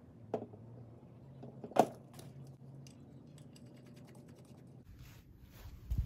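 A few sharp metallic clicks and clinks of hand tools being handled, the loudest about two seconds in, over a faint steady low hum; a low rumble and rustling near the end.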